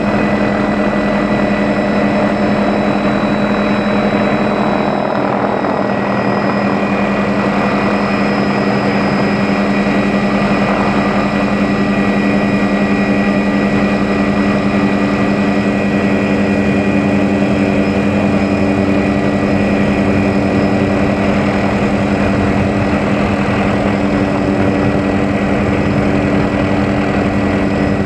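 Helicopter in flight, heard from on board: a loud, steady drone of engine and rotor that holds unchanged throughout.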